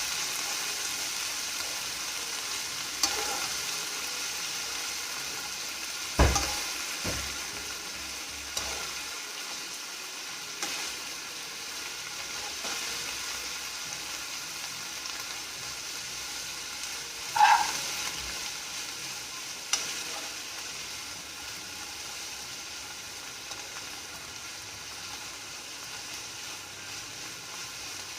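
Onions, coriander and mint leaves frying in oil in a pan, a steady sizzle that slowly fades. A spatula stirs and knocks against the pan a few times, most loudly about 6 and 17 seconds in.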